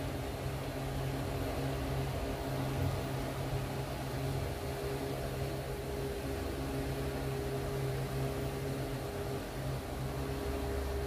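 Steady low machine hum over an even hiss, like a fan or household appliance running, unchanged throughout.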